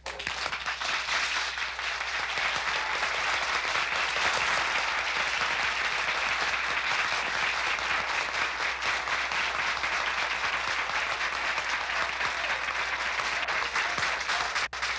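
Large seated audience applauding, a dense steady clatter of many hands that breaks out the moment a speaker finishes, in approval of his speech. It drops out briefly near the end.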